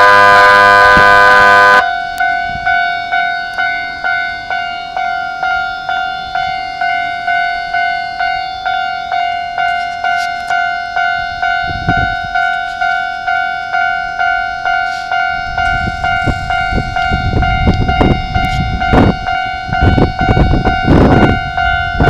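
Japanese railway level-crossing alarm: the loud buzzing 'buuuu' warning sounded while the barrier comes down cuts off about two seconds in, leaving the crossing's electronic bell ringing at about two strikes a second. Over the last several seconds a low rumble with irregular clattering rises under the bell as a train runs through the crossing.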